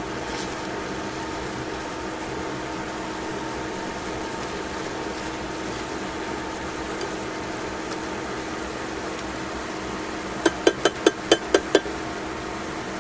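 Chicken frying in a stainless steel pan with a steady sizzle. Near the end, seven quick metallic clinks of tongs tapping against the pan.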